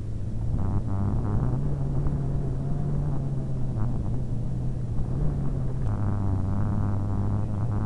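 Paramotor engine and propeller running steadily in flight, its pitch stepping up a little about a second and a half in and dropping back about six seconds in.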